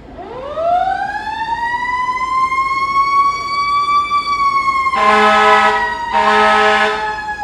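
Fire truck siren winding up, rising in pitch over about four seconds, then slowly winding down. Two blasts of the truck's horn sound over it about five and six seconds in.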